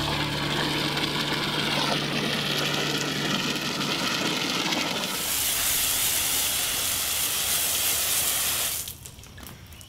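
Garden hose spray nozzle hissing steadily as water is sprayed onto a floor. It starts suddenly about five seconds in and shuts off near the end. Before it there is a steady rushing wash of sound.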